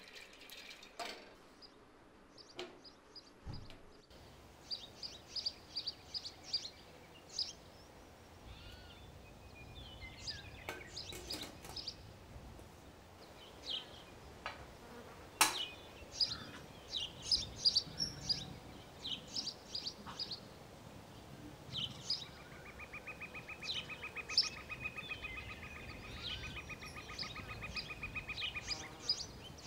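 Birds chirping in short repeated bursts, with a sharp click about halfway through and a steady, rapid buzzing trill for several seconds near the end.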